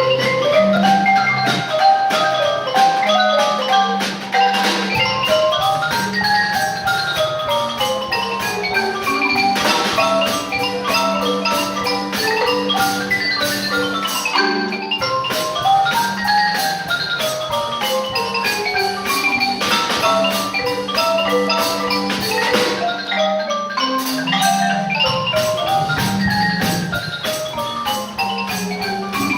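Live ensemble music led by mallet percussion: quick runs of struck notes climbing and falling, over a held low note.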